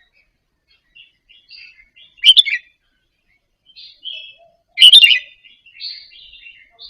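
Red-whiskered bulbul singing: soft chattering, warbling notes broken by two loud short phrases about two and a half seconds apart.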